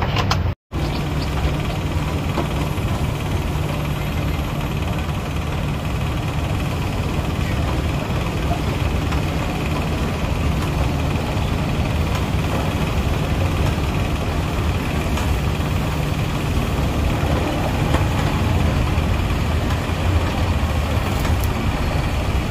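Steady low mechanical rumble and hum, with a brief sudden dropout to silence less than a second in.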